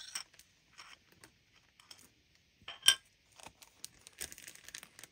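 Handling of crystal rivoli stones, a plastic bead tray and small zip bags: scattered light clicks and clinks, one sharp click about three seconds in, and plastic bag crinkling near the end.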